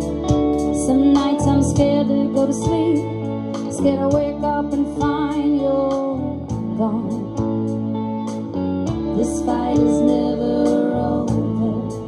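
Live band music: electric guitar over bass and a drum kit, with steady drum hits and some bending guitar notes.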